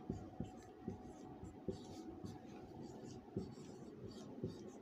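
Marker pen writing on a whiteboard: faint, irregular short strokes and taps of the tip against the board.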